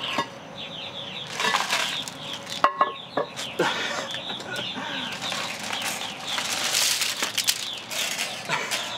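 Broken plastic pieces of a collapsed stool and iron weight plates being handled and shifted, with rustling, clattering bursts and one sharp knock with a short ringing note. Birds chirp throughout.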